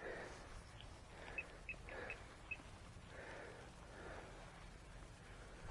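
Faint rustling and crumbling of a soil clod being broken apart by hand while searching for a shallow metal target, with a few short high chirps.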